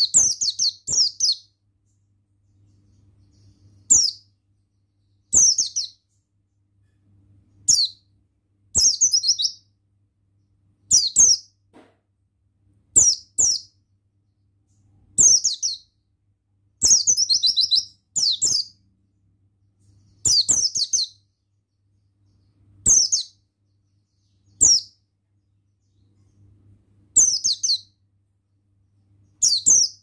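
Pleci buxtoni white-eye singing: short, high, rapid twittering phrases of quickly falling notes, repeated about every one and a half to two seconds with brief pauses between.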